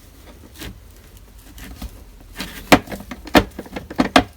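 Quiet handling noise, then four sharp clicks and knocks in the second half, from tools and plastic trim being worked on at the car's hatch.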